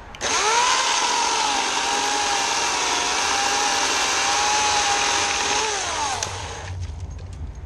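Portland 14-inch 9-amp electric chainsaw starting up with a rising whine and running steadily as it cuts through a tree limb. It winds down, falling in pitch, about six seconds in.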